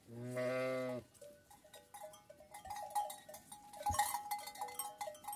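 A Kangal sheep gives one loud, steady bleat about a second long. Shorter, fainter calls from the flock follow, with a sharp knock a little before the four-second mark.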